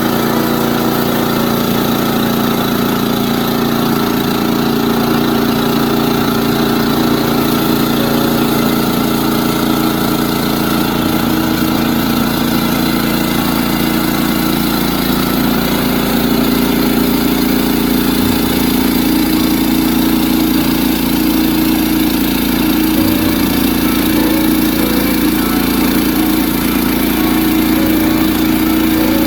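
Portable bandsaw mill's gasoline engine running steadily.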